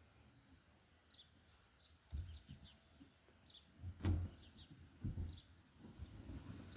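Small birds chirping repeatedly in the background, with several dull low thumps, the loudest about four seconds in.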